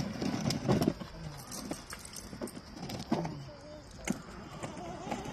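Scattered knocks, clicks and rustles from a child's plastic ride-on toy car being handled, most of them in the first second.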